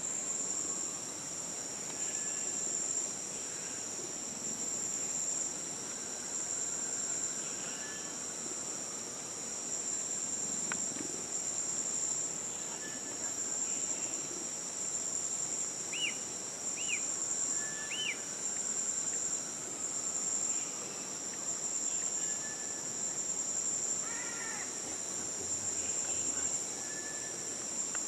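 Steady, high-pitched insect chorus of forest crickets or cicadas, with occasional short chirps and whistles over it, including three quick ones a little past halfway.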